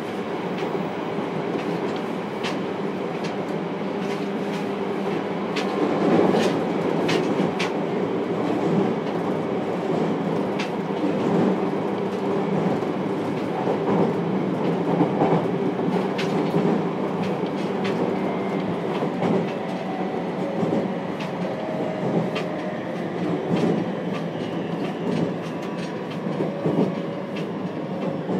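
JR Kyushu 303 series electric train running, heard from inside motor car MoHa 303-1: a steady rumble of wheels on rail with scattered clicks, loudest about six seconds in, and a faint steady tone in the second half.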